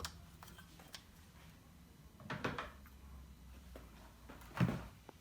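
Light handling sounds of the grid parts and tools inside a cabinet: a few faint knocks and clicks, the loudest a short knock near the end.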